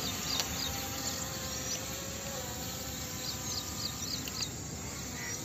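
P18 Pro quadcopter drone's brushless motors giving a steady buzzing hum in flight, its pitch wavering slightly.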